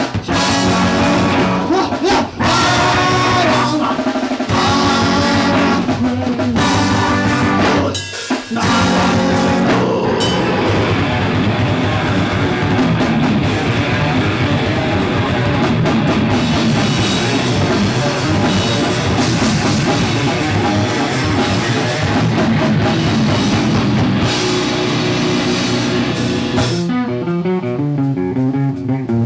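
Live rock band playing loud on drum kit and electric guitar. In the first eight seconds the playing goes in stop-start hits with brief breaks, then runs on as a dense full-band passage. Near the end the drums drop out and the guitar plays on alone.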